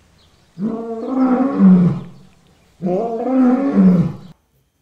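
Lion roaring: two long, deep roars in a row, each about a second and a half.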